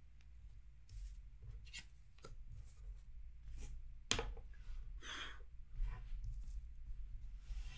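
Light handling noises at a desk: scattered taps and clicks and a brief rustle about five seconds in, over a low steady hum.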